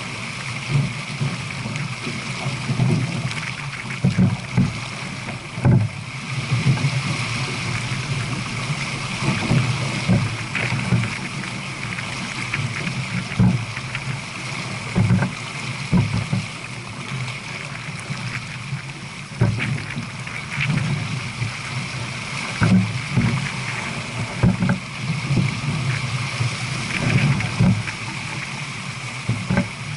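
Water rushing along the hull of a J/24 sailboat running downwind at about seven knots, a steady hiss with frequent irregular low thumps.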